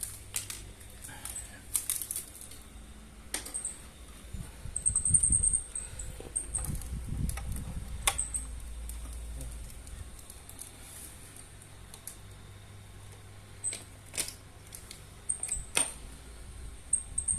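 Handling a multi-effects unit and its packaging: scattered sharp clicks and knocks, with a stretch of heavier, low rumbling handling about five to eight seconds in.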